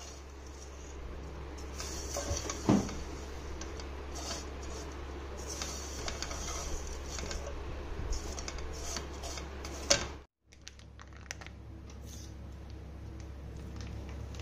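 Silicone spatula stirring and scraping vermicelli roasting in ghee in a nonstick pan, with soft rustling, light clicks and two sharper knocks against the pan, over a steady low hum. After a short break about ten seconds in, a quieter steady hum with occasional ticks follows.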